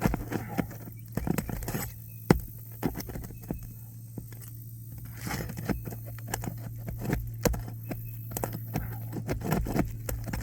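Roofer's hatchet and roof snake working under asphalt shingles to lift them and pull out roofing nails: irregular sharp clicks and scrapes of metal on shingle and nail, the loudest a single click about two seconds in, over a steady low hum.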